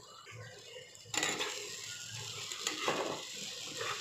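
A spatula scrapes in a pan of frying prawn masala; about a second in, a sudden steady sizzle starts as boiled, drained taro stolons (kochur loti) go into the hot oil, and the scraping of stirring carries on.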